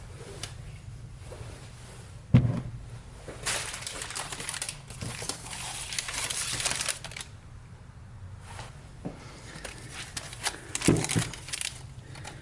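Workbench handling noise during hub and bearing work. A sharp knock comes about two seconds in, then several seconds of crinkling and rustling, then a cluster of knocks near the end.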